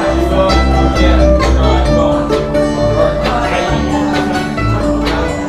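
Instrumental break in a bluegrass-style song: banjo and guitar picking a steady run of plucked notes over low bass notes.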